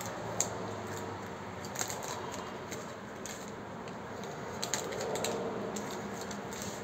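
Thin clear plastic sleeve crinkling, with scattered small sharp clicks, as a smartphone is handled and slid out of it, over steady background noise.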